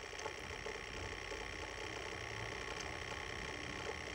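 2006 GMC Yukon V8 running at idle, heard at the throttle body with the intake duct off: a steady hum and air hiss with a few faint ticks.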